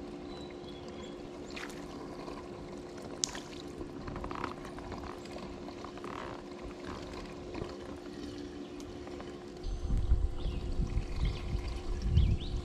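Water trickling and lapping around a kayak under a faint steady hum, with one sharp click about three seconds in. A louder, uneven low rumble comes in near the end.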